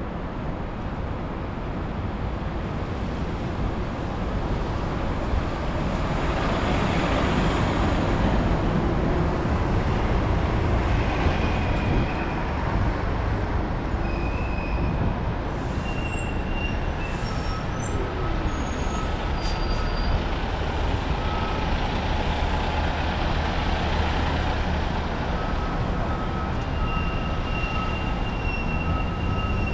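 City street traffic: a heavy vehicle passes close about six to twelve seconds in, over a constant low rumble, with short high-pitched squeals and whines through the second half.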